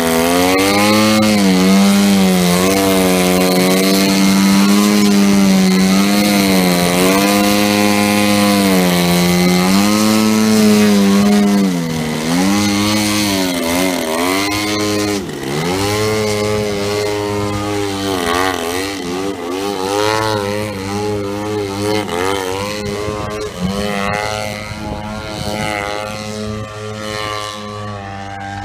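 Large RC aerobatic airplane (an Extra 330SC model): its engine and propeller run hard, the pitch swinging up and down again and again as the throttle is worked to hold the plane in a nose-up hover. The sound grows fainter after about twelve seconds and fainter still in the second half as the plane flies off.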